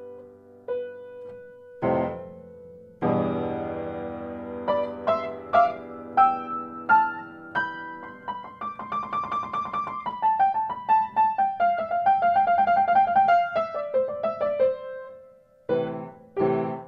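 Solo piano music. Slow single notes and chords give way to a fast run of rapidly repeated notes that climbs and then steps back down, ending on two loud chords.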